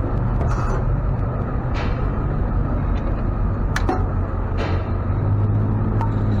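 Tow truck engine running with a steady low drone, with a few short hisses and clicks over it.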